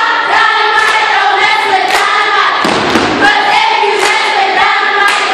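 A cheerleading squad of girls chanting a cheer together in unison, with sharp rhythmic claps and stomps about twice a second.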